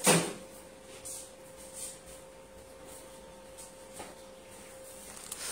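Clear plastic garment bag rustling and crinkling as a packaged fabric suit is handled, with one loud crinkle right at the start and a few faint rustles after. A faint steady hum runs underneath.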